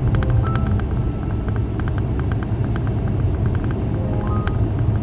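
Steady low rumble of road and engine noise inside a car cruising at highway speed, with faint quick ticks and short tones over it.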